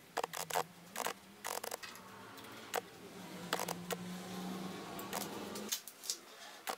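Short metallic clicks and scrapes of a screwdriver and hex key working screws and nuts on a laser engraver's metal frame. A steady low hum runs underneath and stops near the end.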